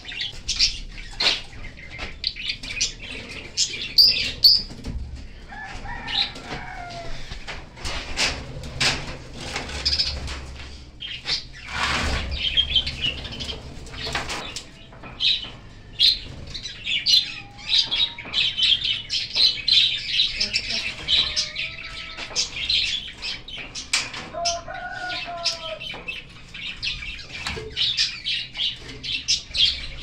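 Small cage birds flapping and fluttering their wings in an aviary, with a lot of high chirping chatter. The birds are stirred up by branches being set into their cage, and twigs brush and knock against the wire mesh.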